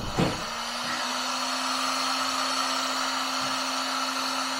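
Electric heat gun switched on with a short knock, then running steadily, a fan whir with a steady hum, as it shrinks heat-shrink tubing onto cut wire ends.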